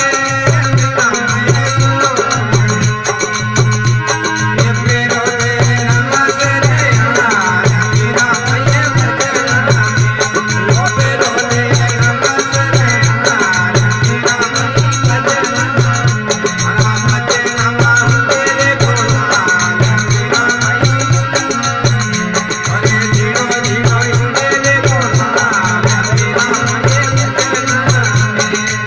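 Folk music with a steady, even low drum beat and a wavering melody line over it.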